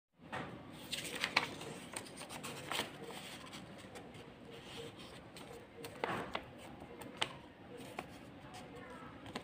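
Sheet of white paper rustling and crackling as it is handled and folded, with several sharp crinkles.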